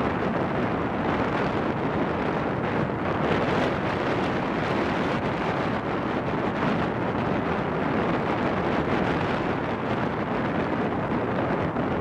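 Strong wind blowing across the microphone, a steady rushing noise.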